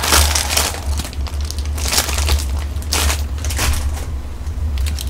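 Foil instant-noodle sauce packets crinkling and crunching as they are handled, in irregular bursts about once a second, over a steady low hum.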